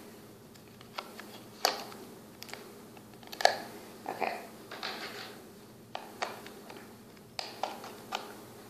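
Fingernails picking at and peeling the tape on a small cosmetics box while handling the packaging: scattered sharp clicks and crackles, the loudest about three and a half seconds in.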